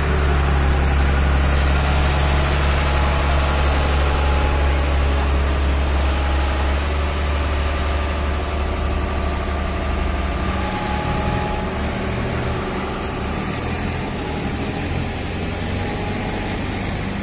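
Tata Hitachi EX200LC excavator's diesel engine running, a steady deep drone that turns rougher and a little quieter about ten seconds in.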